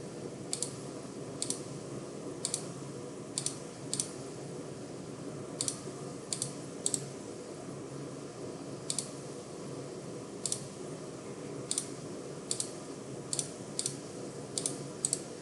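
Scattered clicks of a computer mouse and keyboard, mostly in quick pairs about once a second at irregular spacing, over a steady low background hum.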